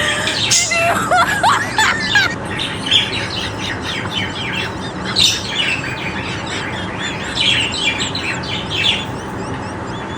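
Birds chirping and squawking in quick runs of short, sharp notes, with a few rising whistled notes in the first couple of seconds.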